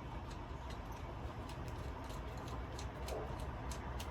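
Faint, irregular light clicks and ticks of small chainsaw parts being handled and fitted by hand, over a low steady hum.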